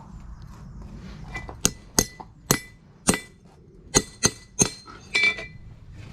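A farrier's hammer striking steel in about eight sharp, ringing clinks at an uneven pace. A low steady hum runs beneath.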